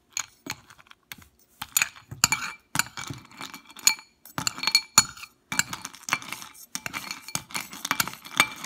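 Metal spoon clinking and scraping against a ceramic bowl and the ice cubes in it: many irregular sharp clinks with a short ring.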